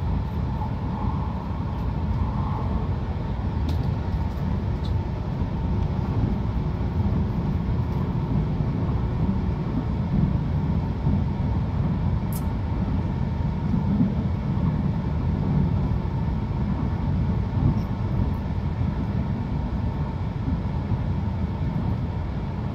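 Steady rumble of an Akita Shinkansen Komachi train running at speed, heard from inside a passenger car: wheels and running gear on the track, with a few faint clicks.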